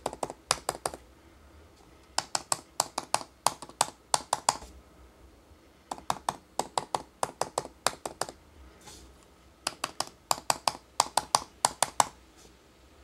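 Typing on a MacBook Pro's butterfly-switch keyboard: bursts of rapid key clicks lasting about two seconds each, with pauses of a second or so between bursts.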